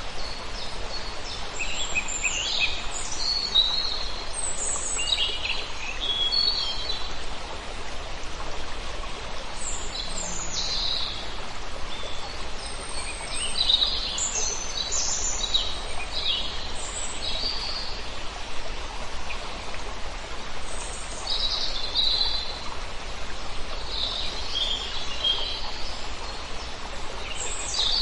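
Several birds chirping and trilling in short, scattered calls over a steady rush of flowing water.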